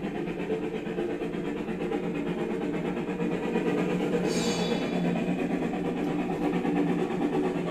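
Steady low mechanical running noise with a pitched hum, and a brief high squeal about four seconds in.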